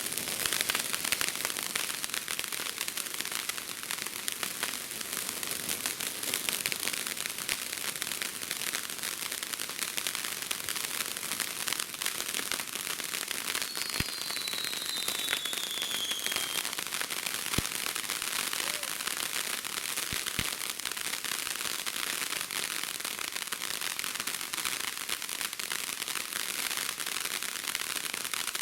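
Consumer fireworks crackling steadily: a dense run of tiny pops and sizzle, with a short falling whistle about halfway through.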